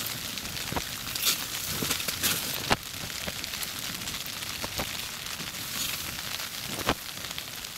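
Heavy rain pattering on the fabric of an ice-fishing tent: a steady hiss with scattered sharp clicks of drops and small knocks, the loudest about a second in, near three seconds and near seven seconds.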